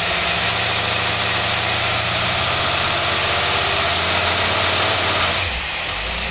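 Carbureted engine fitted with a Holley two-barrel marine carburetor running hard under dyno load at high revs, hitting the rev limiter with a fast stutter. About five seconds in the throttle closes and it drops back to idle.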